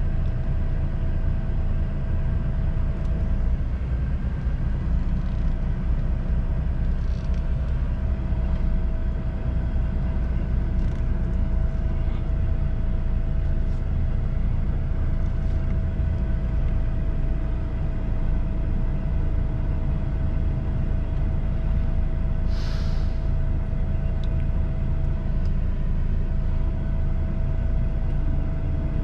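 Truck diesel engine running steadily, heard from inside the cab as a low rumble. About three quarters of the way through comes one short hiss of air, typical of the truck's air brakes.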